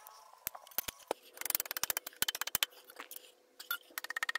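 Rapid, evenly spaced ratcheting clicks, about ten a second, in two runs: one of about a second near the start, and a louder one that begins near the end. This is a hand ratchet being worked during piston installation.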